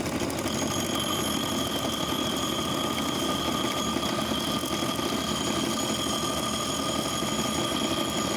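Power grinder running steadily with a high-pitched whine, cutting the hex head off a bolt and grinding it down smooth.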